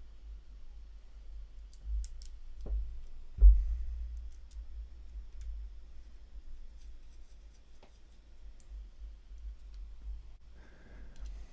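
Paintball marker parts and small hand tools being handled during reassembly: scattered light clicks and taps, two knocks about three seconds in, the second the loudest, and a short rasp near the end.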